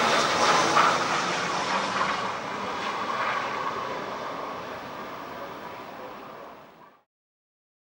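Airbus A319 jet on final approach passing the listener, its engine noise dying away over several seconds and then cutting off abruptly about seven seconds in.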